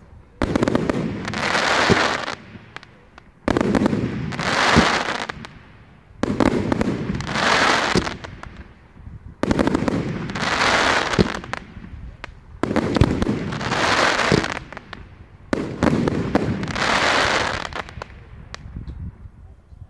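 Aerial fireworks shells bursting one after another, about every three seconds: each starts with a sharp bang and swells into a long crackle that fades before the next, about six in all.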